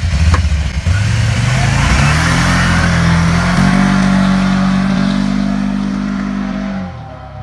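TGB Blade 1000 ATV's V-twin engine revving as the quad accelerates away, its pitch climbing over the first couple of seconds, then holding steady before fading out near the end as it drives off.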